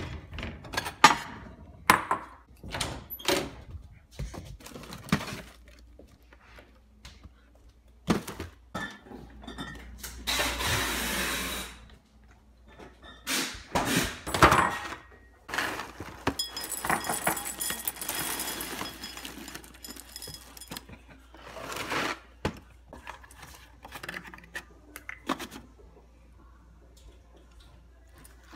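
Kitchen handling noises: a cupboard and a ceramic bowl knocking and clinking, with a run of separate clatters and thunks. There are two longer stretches of rustling, about ten and sixteen seconds in, that fit dry cereal being poured into the bowl.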